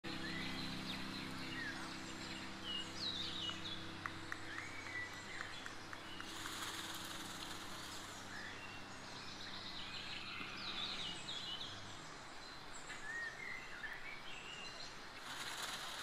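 Small wild birds chirping now and then over outdoor ambience, with a steady low hum underneath that stops about twelve seconds in. A soft rustling hiss comes in briefly midway and again near the end.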